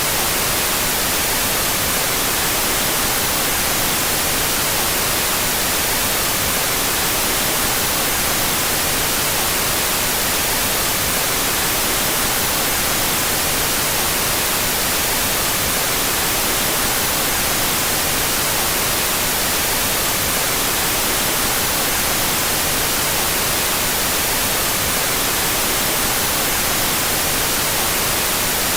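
Steady, unbroken out-of-phase white noise: an even hiss spread across the whole frequency range.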